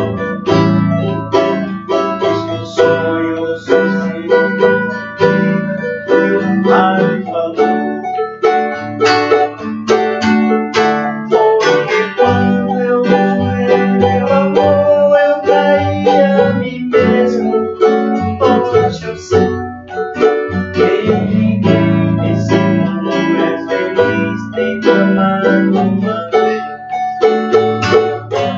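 Banjo and craviola acoustic guitar playing an instrumental passage together: a run of quick plucked notes over a bed of chords.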